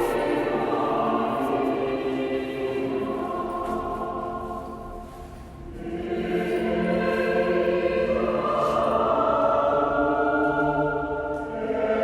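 Choir singing a slow liturgical chant in sustained, held notes; one phrase fades out about five seconds in and a new phrase rises and swells from about six seconds.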